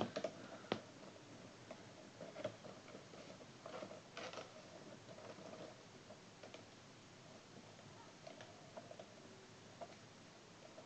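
Faint clicks and crackles of a boxed toy's cardboard-and-plastic package being handled and turned over in the hands. The sounds are busiest in the first half, with a few isolated ticks later.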